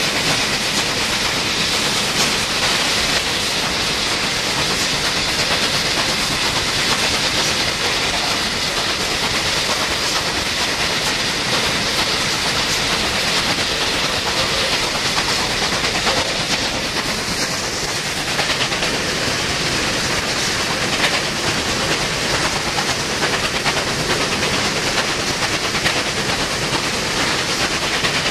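New South Wales 38 class steam locomotive running: a steady rush of steam hiss mixed with rail and wheel noise.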